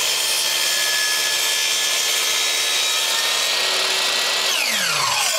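Electric miter saw running at full speed, its blade cutting a thin slice off the end of a wooden block. Near the end the motor is switched off and its whine falls in pitch as the blade spins down.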